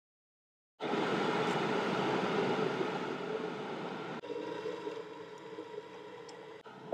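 Water pouring and gurgling while tea is being made, a steady rush that starts abruptly about a second in and slowly fades.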